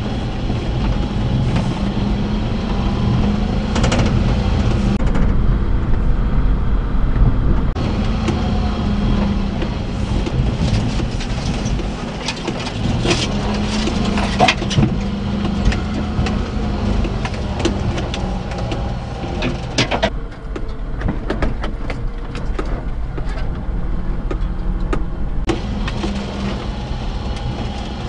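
Daihatsu Hijet mini-truck's 660cc three-cylinder carbureted engine running as the truck drives over a rough dirt trail, heard from inside the cab, its note rising and falling. There are frequent knocks and rattles from the cab bouncing over the bumps.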